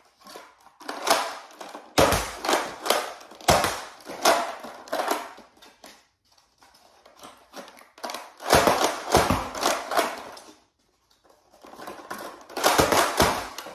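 Nerf Mega DoubleBreach blaster being primed, loaded and fired again and again: several clusters of plastic clacks and snaps from the priming handle, the breech door closing and the plunger firing Mega darts, with short pauses between.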